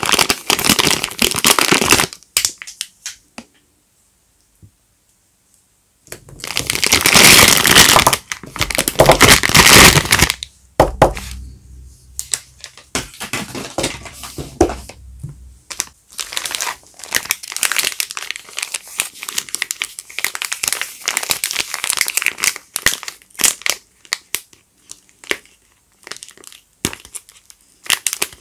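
Soap wrappers crinkling and tearing as soap bars are unwrapped by hand: loud bursts of crinkling, a pause of a few seconds about 2 s in, another long burst, then lighter rustling and crackles with small clicks.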